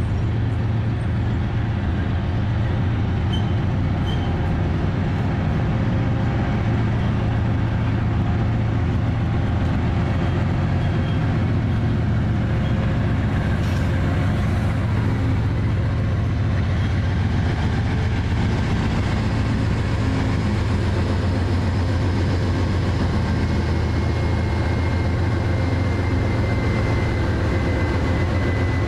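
Diesel locomotive engine running with a steady low drone as a freight train creeps past, with the rumble of the slow-rolling cars. Over roughly the last nine seconds a faint high whine comes in, sliding slightly down in pitch.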